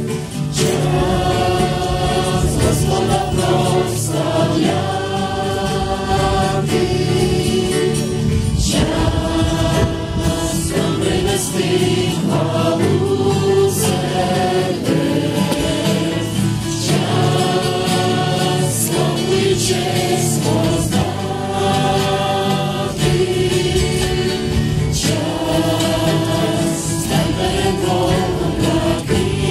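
Many voices singing a Christian hymn together in phrases of a few seconds, accompanied by acoustic guitars.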